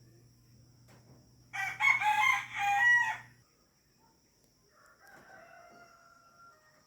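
Rooster crowing loudly once, a stepped cock-a-doodle-doo lasting about two seconds. A second, fainter crow follows about halfway through.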